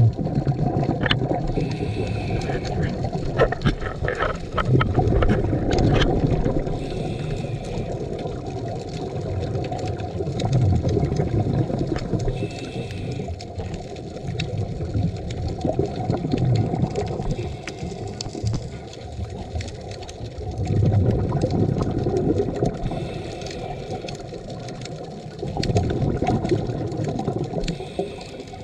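Scuba diver breathing through a regulator underwater: a short hiss on each breath in, then a burst of bubbling exhaust on each breath out, about every five seconds.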